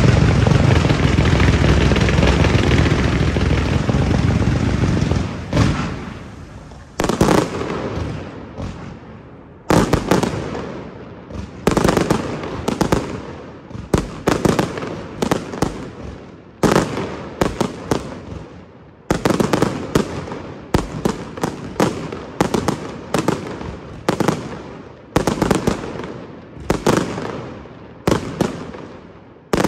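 Aerial fireworks display by Pirotecnia Tomás: a dense, loud barrage of bursts for about the first five seconds, then a long run of separate sharp shell bursts, roughly one a second and sometimes in quick clusters, each trailing off.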